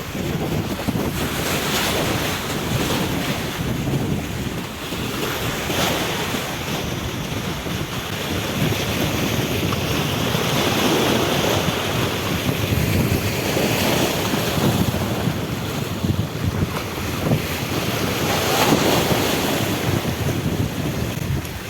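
Wind buffeting the microphone over the wash of sea waves, a steady rushing noise that swells and eases every few seconds.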